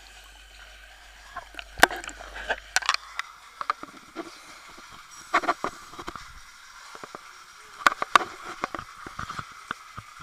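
Underwater clicks, knocks and bubbling from a diver working in a flooded pump sump. They come in clusters every two to three seconds over a faint steady hum.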